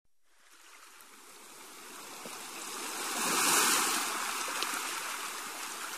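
Sea waves surging in one slow swell: the rush of water builds for about three and a half seconds, then eases off.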